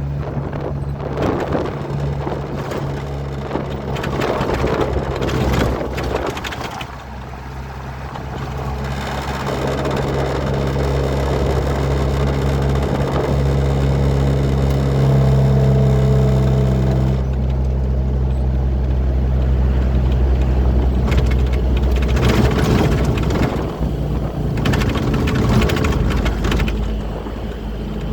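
Truck engine running steadily on the road, with surges of road and wind noise from passing traffic. A steady higher whine sits over it from about nine to seventeen seconds in.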